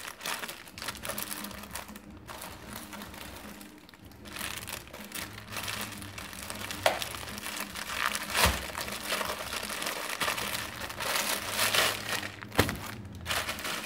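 Plastic mailer bag and packaging crinkling and rustling as they are handled and opened, with a few sharper crackles and a dull thump partway through.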